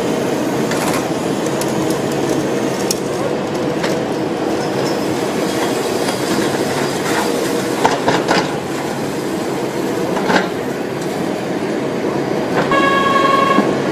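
Siemens NF8 Combino tram running along the track, a steady rolling noise with a few sharp clicks of wheels over rail joints. Near the end a steady pitched tone sounds for about a second.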